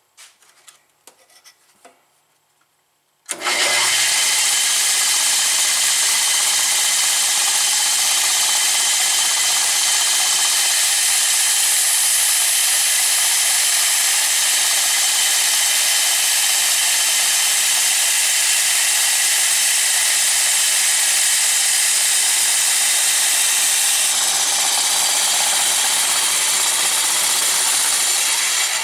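Old 1930s Sears Craftsman bandsaw switched on after a few faint clicks, then running and cutting with a loud, steady, hissing rub. It is noisy because the blade rubs against the guide bushing. The sound cuts off near the end.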